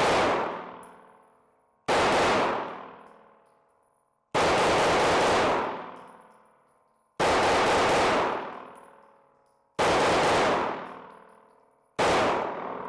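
A 9mm Glock pistol firing six slow, evenly spaced shots, two to three seconds apart. Each shot clips the recording and rings away over about a second.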